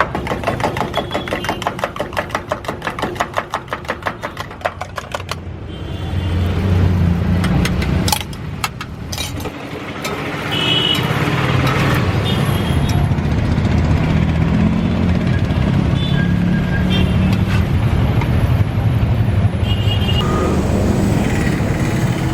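Road traffic rumbling past, with short horn-like tones from about ten seconds on. The first five seconds are marked by a quick, even clicking, about seven or eight clicks a second.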